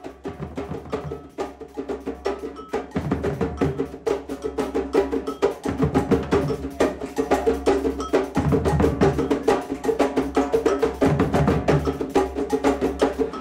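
Percussion-led music fading in, with a fast run of sharp strokes over a deep drum hit about every two and a half seconds.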